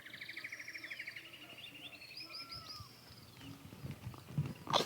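High animal calls: a fast pulsed trill for about a second, then a higher trill and a string of short hooked chirps, with a sharp click near the end.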